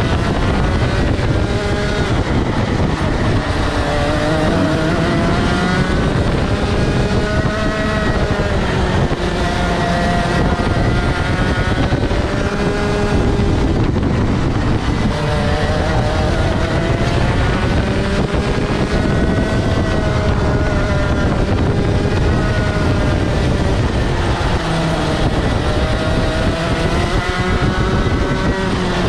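Rotax Max Senior 125 cc single-cylinder two-stroke kart engine at racing speed, its revs rising and falling again and again through the lap, heard from a helmet-mounted camera.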